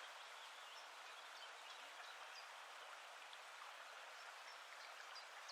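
Faint, steady rush of flowing water, with a few short, high chirps scattered over it.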